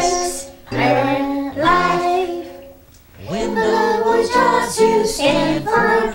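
A woman and a girl singing a children's song together, the singing dropping away briefly about three seconds in before the next line starts.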